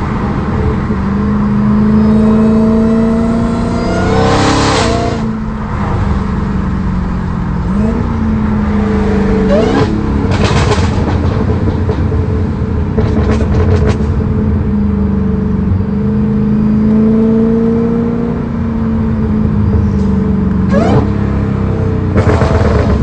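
Dodge Challenger Hellcat's supercharged 6.2-litre Hemi V8, built past 1000 hp, running under way with several quick rev blips as it downshifts, each followed by loud exhaust crackles and pops.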